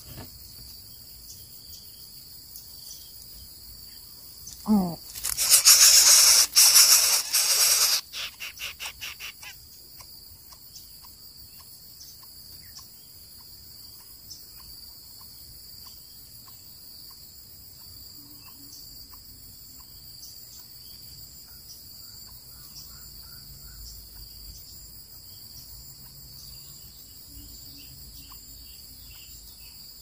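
Greater coucal chicks in the nest giving a loud, harsh hiss for about three seconds that breaks into rapid pulses before stopping, over a steady high drone of insects.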